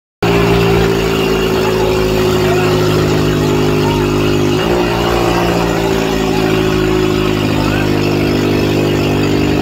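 Mahindra 585 DI tractor's four-cylinder diesel engine running steadily, its pitch stepping up slightly about halfway through.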